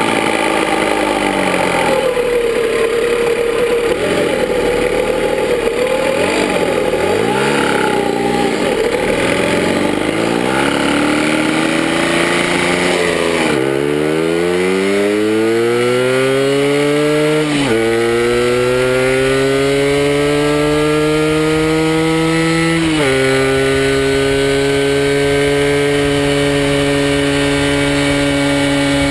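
A Puch MS50 moped's 70 cc two-stroke engine pulls away under load, its pitch wavering low at first. It then climbs in steep rising sweeps, dropping sharply at two upshifts, and settles into a steady high-revving cruise near 70 km/h for the last several seconds.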